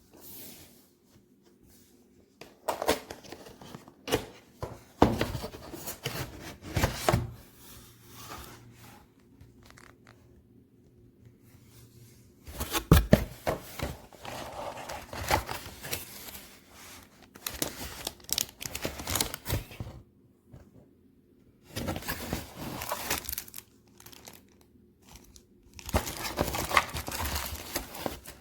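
Packaging being handled and opened: crinkling and tearing of plastic or paper in irregular bursts, with short pauses between them.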